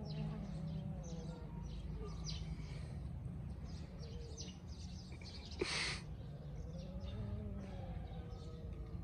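Outdoor ambience: small birds chirping in short high notes, and a cow lowing in the distance twice, once at the start and again near the end. A brief, loud burst of hiss-like noise comes a little past halfway.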